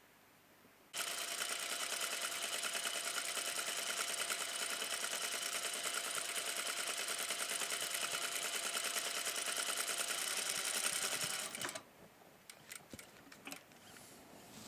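Sewing machine stitching a line at a steady, fast, even pace, starting about a second in and stopping abruptly near the end, followed by a few faint clicks.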